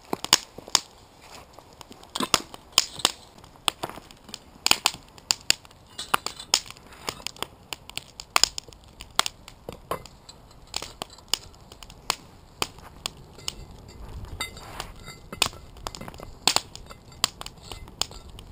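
Charcoal briquettes being handled and set onto a cast-iron Dutch oven lid, giving irregular sharp clicks and crunches, several a second at times.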